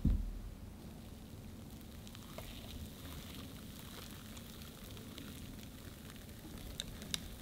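Thick genoise sponge batter pouring from a glass bowl into a parchment-lined aluminium cake pan: a faint, steady soft wet sound with small ticks as the batter folds onto itself. A dull knock right at the start, and two sharp clicks near the end.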